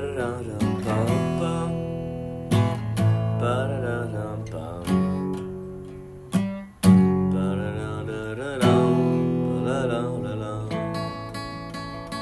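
Acoustic guitar played solo: chords strummed hard about every two seconds and left to ring out, with wavering bent notes in between.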